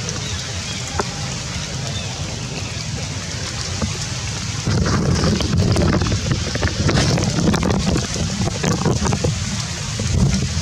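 Steady rain with wind buffeting the microphone; the low wind rumble grows louder about halfway through, with a few light ticks over the hiss.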